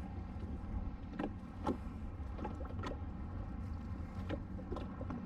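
Water lapping against a jet ski's hull over a low wind rumble, with scattered small clicks and taps.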